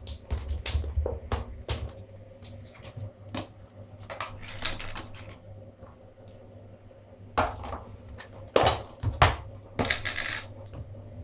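Clear plastic deli cups and lids being handled on a hard surface: scattered clicks and taps of plastic, with a few longer scraping rustles, over a faint steady low hum.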